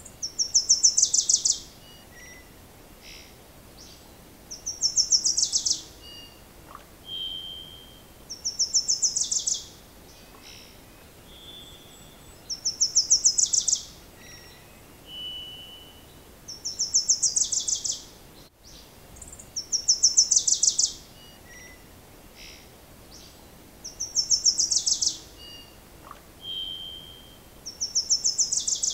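A songbird singing the same short phrase over and over, a fast burst of high-pitched notes lasting just over a second, repeated about every four seconds, with a short single note between some phrases.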